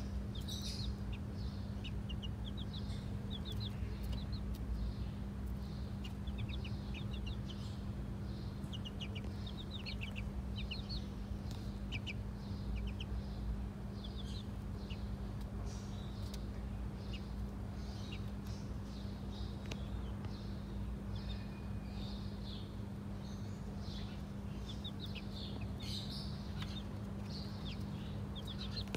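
Young chickens peeping: many short, high cheeps in quick runs, coming and going, over a steady low hum.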